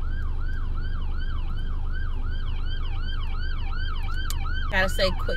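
Emergency vehicle siren on a fast yelp: a wavering wail repeating about three times a second, holding steady in loudness, over the steady low rumble of the car.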